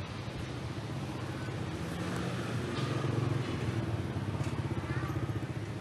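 Street traffic, with motorbike and car engines running and passing in a steady low rumble that grows a little louder about halfway through.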